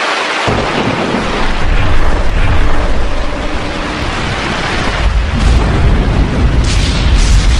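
Cinematic intro sound effects: a loud hiss, then from about half a second in a deep booming rumble that holds, with a few short whooshes near the end.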